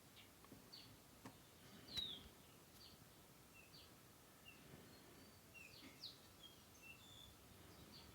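Faint, short high chirps scattered through a quiet background, with one sharp click about two seconds in.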